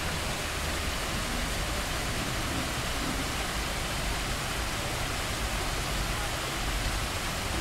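Fountain water jets spraying and splashing into the pool: a steady hiss of falling water.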